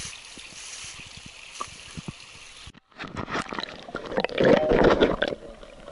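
Creek water sloshing and gurgling around rocks as hands grope under them in the shallows, close to the water and loudest a little past halfway. Before a sudden cut just short of halfway, a steady hiss of running stream water with a few light rustles.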